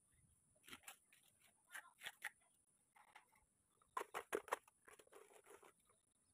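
Wet cement mortar being worked by hand and trowel onto a rebar column cage: short scraping sounds, with a quick run of sharper scrapes about four seconds in as mortar is scooped out of a bucket.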